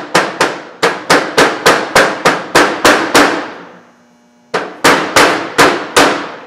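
Mallet tapping a tapered roller bearing cup into the bore of a Sprite/Midget front wheel hub: a quick run of sharp, ringing metal knocks about three a second, pausing for about a second midway before the tapping resumes. The taps start the cup in straight before it is pressed, since it tends to dance around in the bore.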